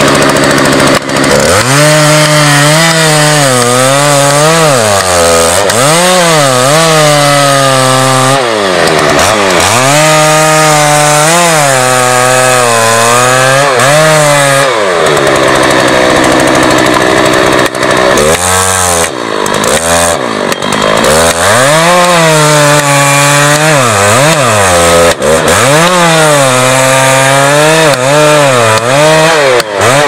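Two-stroke chainsaw with a long bar sawing through a large tree trunk as part of felling it. Its engine pitch rises and falls again and again as the chain bites into the wood and frees up.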